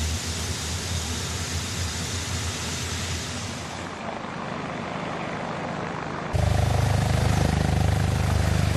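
Sikorsky S-97 Raider compound helicopter's coaxial main rotors and pusher propeller running, a steady low rotor chop. The sound changes abruptly twice, about four and six seconds in, and is louder and deeper after the second change.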